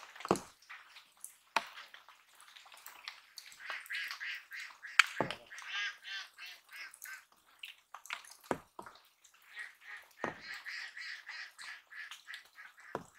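Ducks quacking in rapid runs, with a few sharp knocks in between.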